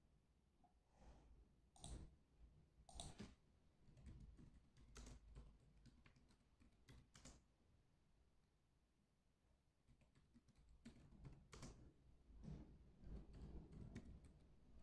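Near silence with faint, scattered taps of a stylus on a tablet's screen, a second or two apart.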